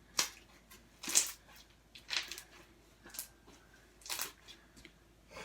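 Slime being squished and pressed by hand: five short, sticky squelches about once a second.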